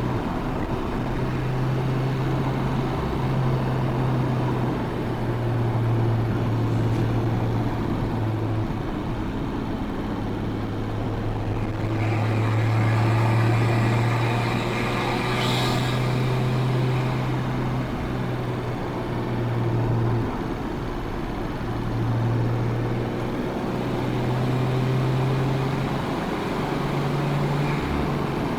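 Nissan Skyline R34 GT-T's turbocharged straight-six running through a full exhaust system under way, its note rising and falling as the driver works the throttle and shifts gears. It works hardest for a few seconds about halfway through, ending in a brief sharp burst of noise.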